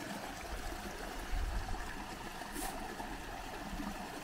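Shallow mountain stream trickling and burbling over stones and through gaps between stone gabions, a steady flowing-water sound. A brief low thump comes about a second and a half in.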